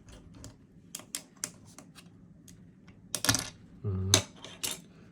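Plastic PBT keycaps clicking and clattering against each other and their plastic case as they are pried out. A run of light sharp clicks, then a louder clatter about three seconds in.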